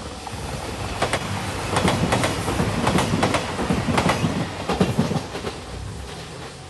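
A JR 2700 series diesel train passes at speed. Its wheels clack over the rail joints in a run of sharp, partly paired beats, swelling in and fading out as it goes by.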